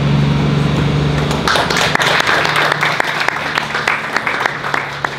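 Audience applauding, the clapping starting about a second and a half in, over a steady low hum.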